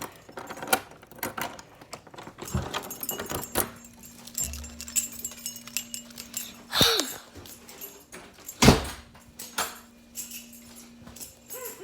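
Keys jangling and clicking, with a short falling squeal about seven seconds in and a loud knock about two seconds later.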